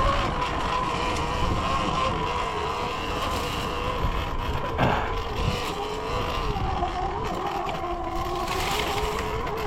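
Sur-Ron Ultra Bee electric dirt bike motor whining while riding, its pitch wandering up and down with speed over a low rumble. There is one sharp knock about five seconds in.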